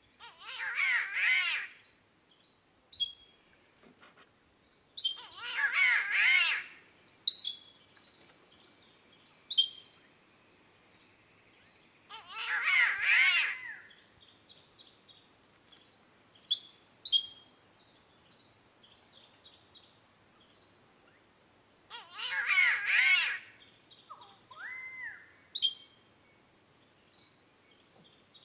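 Spotted catbird giving its harsh, cat-like wailing call four times, each call lasting about one and a half to two seconds with long pauses between. Short sharp notes and soft twittering come in the gaps.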